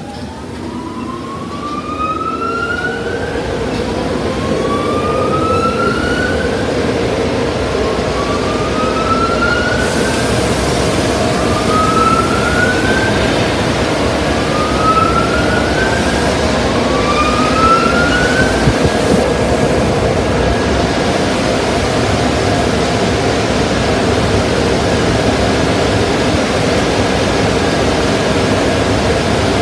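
Car wash dryer blowers starting up one after another: six rising whines about three seconds apart as each fan motor spins up. The sound builds over the first few seconds into a steady loud rush of air.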